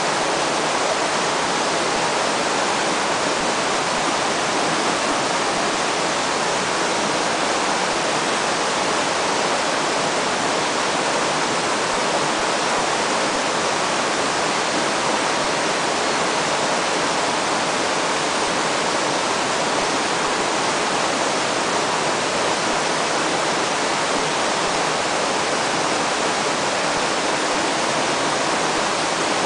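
Steady rushing of a fast river current: an even, unbroken hiss of flowing water.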